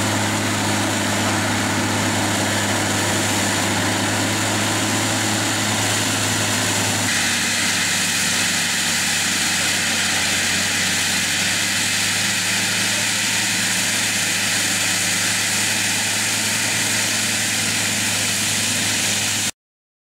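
JCB Fastrac 8250 tractor running under load, driving an FAE UMM/S 225 forestry mulcher through brush and soil: a steady engine drone with the rotor's rush. The tone shifts about seven seconds in, and the sound cuts off suddenly near the end.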